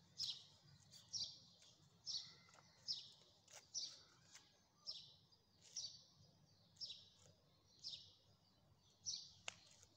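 A small bird calling: a short chirp falling in pitch, repeated about once a second.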